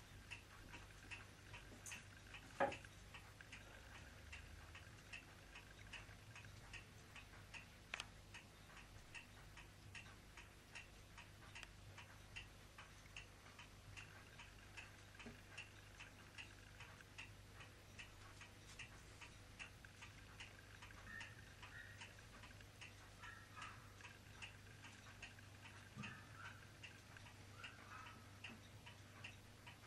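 Quiet room with a clock ticking faintly and evenly, about two ticks a second, over a low steady hum. A single knock sounds about two and a half seconds in, and a sharp click at about eight seconds.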